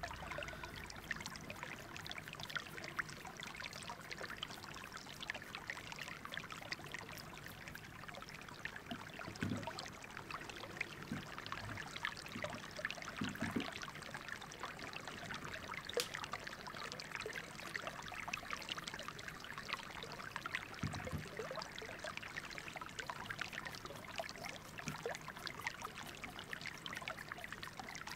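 Paintbrush bristles scrubbing and dabbing white primer onto a dried clay pumpkin: a dense, steady scratchy crackle, with a few soft low thumps.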